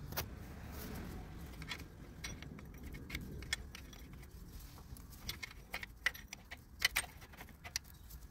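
Metal wrench clinking and clicking on the belt tensioner's 17 mm bolt as it is tightened: scattered, irregular sharp metallic clicks, a few in quick clusters.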